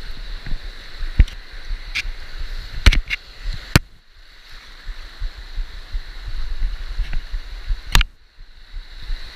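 Shallow surf washing and foaming over a reef flat close to the microphone, with several sharp knocks against the camera or rod; the wash drops away briefly about four seconds in and again near the end.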